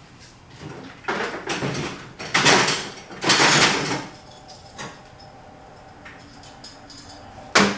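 Workshop items being moved about: three scraping, sliding noises in the first half and a single sharp clack near the end.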